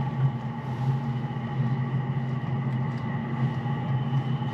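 Steady low mechanical drone of running machinery, unchanging throughout, with several thin steady higher tones over it.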